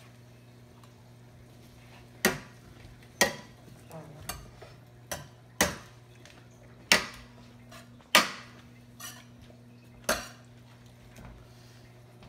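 A spoon knocking against a cooking pot while stirring chicken and vegetables, about nine sharp, irregular clanks roughly once a second, starting about two seconds in. A steady low hum runs underneath.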